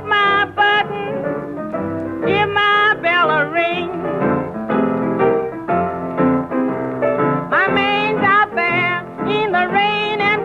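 Vintage 1930s blues record: a small band with piano plays while a lead melody line with wide vibrato comes in phrases over it. The sound is dull and lacks treble, as on an old 78 rpm record.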